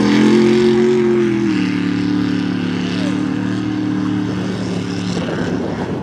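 Engine of a Ford Bronco II mud bog truck running hard at high revs through the mud pit on three wheels, one tire torn off. Its pitch drops a step about one and a half seconds in, and near the end the steady note breaks up into a rougher, choppier sound.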